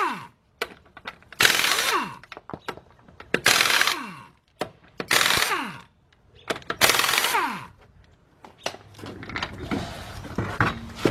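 Pneumatic impact wrench spinning off a car wheel's lug nuts one after another: four loud bursts of about a second each, roughly two seconds apart, each ending in a falling whine as the air motor spins down. From about two-thirds of the way in, lighter knocks and clatter take over.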